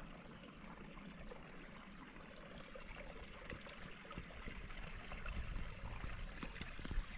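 Faint trickle of a small creek running through open holes in its ice, slowly growing louder, with a few faint clicks.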